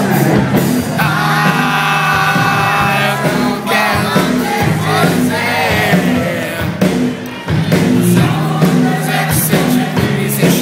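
Rock band playing live with a lead singer, who holds several long sung notes over a steady drum beat.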